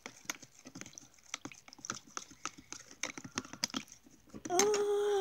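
Plastic spoon clicking and tapping against the sides of a plastic tub while stirring detergent into water, in quick irregular taps. Near the end a girl's voice holds one long note for about a second, dropping in pitch as it stops.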